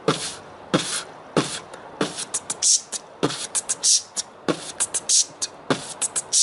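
Human beatboxing: a steady beat of mouth-made bass drum, hi-hat and snare sounds. It has sharp low kicks about every three-quarters of a second, with quick hissing hi-hat ticks and snares between them.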